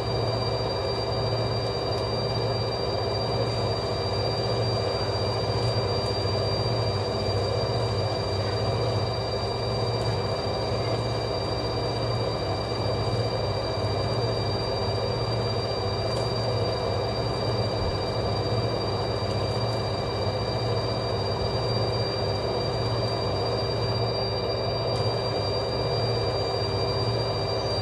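LG direct-drive washing machine in its spin cycle at a steady 1000 rpm: the drum and motor run evenly with a low hum under a constant high whine.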